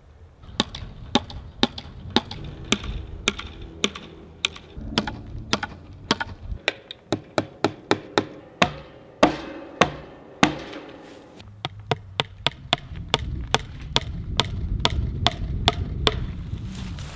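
Hammer driving fence staples into a wooden fence post to fasten woven wire: a long run of sharp strikes, about two a second.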